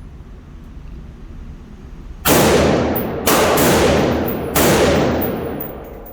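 Three rifle shots fired in quick succession, about a second apart, each followed by a long fading echo.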